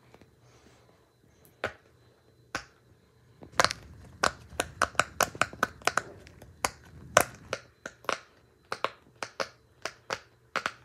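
Bubbles of a large silicone Pop-It fidget toy being pressed by hand, each giving a sharp pop. A few single pops come first, then a quick, irregular run of pops from about three seconds in.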